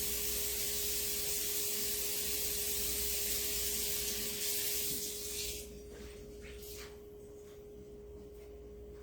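Tap water running steadily while a chalk-paste silkscreen transfer is rinsed, shut off about five and a half seconds in. A faint steady hum runs underneath, with a few light clicks after the water stops.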